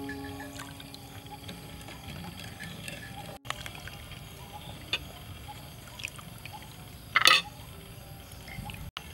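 Liquid poured from a small bowl into a bowl of dressing, then lime juice squeezed by hand and dribbling into it. A short splashy burst comes about seven seconds in.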